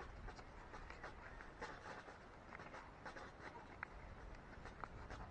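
Faint crinkling and scattered light ticks of a foil seed packet being handled and tapped to sprinkle lettuce seeds.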